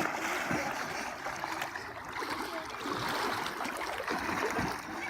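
Continuous splashing and churning of water around swimmers who have just dived into a lake, with a dense, steady rush of small splashes.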